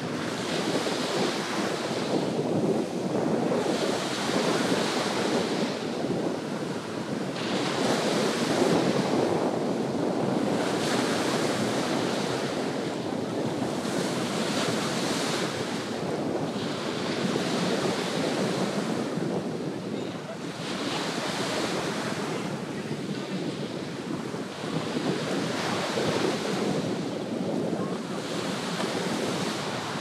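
Small sea waves breaking and washing up a sand beach, a new surge of surf every three to four seconds over a steady wash.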